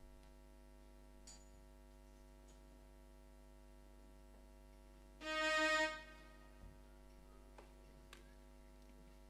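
Steady electrical mains hum, with one short held musical note about five seconds in and a few faint clicks.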